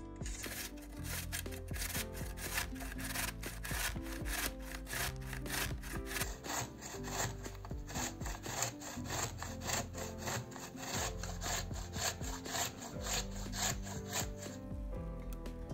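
Zucchini being grated on a stainless steel grater: quick, rhythmic rasping strokes, about three or four a second, that stop near the end.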